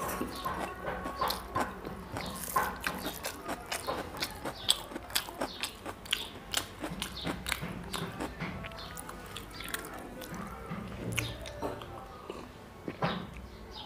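Close-miked chewing of a mouthful of chicken curry and rice, with many quick wet mouth clicks and smacks at an irregular pace.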